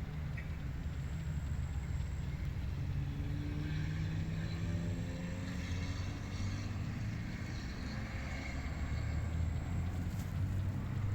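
Steady low hum of a distant engine, its pitch drifting slightly, over a background of wind.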